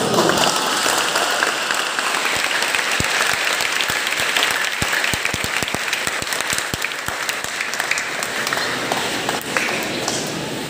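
A large congregation applauding, many hands clapping together at a steady level, inside a church.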